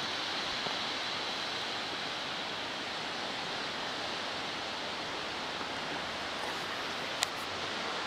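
Steady rushing of a waterfall, an even hiss of falling water, with a single sharp click near the end.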